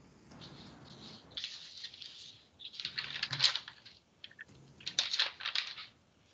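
Faint computer keyboard and mouse clicking in a few short clusters, picked up by a video-call microphone.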